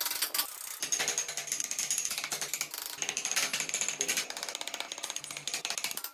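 Hand chisel and carving gouge cutting and scraping a wooden block, a rapid run of short clicking, scraping strokes.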